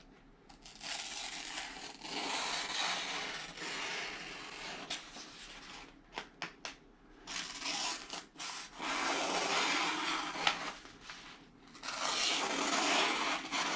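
A budget Ozark Trail pocket knife's 3-inch drop-point blade slicing a sheet of paper: a rough, rasping cut in several strokes with short pauses and a few clicks between them. The edge slices, but only fairly, which the owner calls not bad, but not really good.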